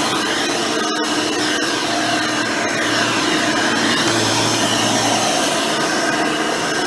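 Hoover Elite 600 upright vacuum cleaner running steadily on a swapped-in modern 7-amp motor with a 20-blade fan. Its pitch shifts slightly up and down as it works.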